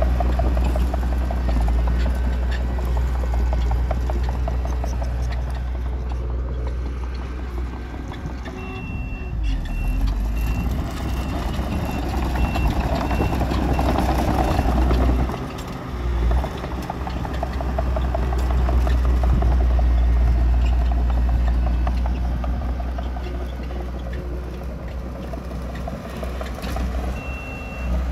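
Diesel engines of heavy earthmoving machines, a Komatsu D31P bulldozer and a dump truck, running with a steady deep rumble. A reversing alarm beeps repeatedly from about nine to sixteen seconds in, and again near the end.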